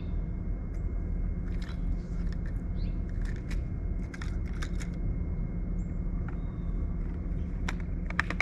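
A boat motor running steadily as a low hum, with scattered light clicks and ticks over it.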